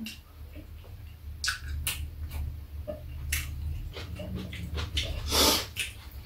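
Metal chopsticks and spoons clicking now and then against bowls and a metal tray during a meal, with chewing. A brief louder rush of noise comes about five seconds in.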